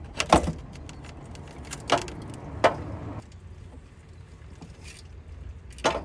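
About four sharp clanks and knocks of tools and metal parts as a car's turbocharger is unbolted and worked free; the loudest comes near the start.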